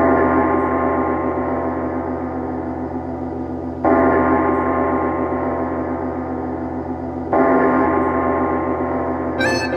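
A gong struck three times, about three and a half seconds apart, each stroke ringing on and fading slowly.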